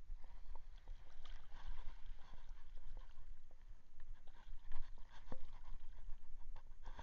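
Water lapping and splashing against a small boat, with scattered light knocks and clicks, over wind rumbling on the microphone.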